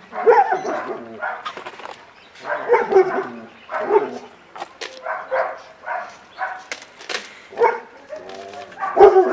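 A dog barking repeatedly, with short pitched barks coming every half second to a second at irregular spacing.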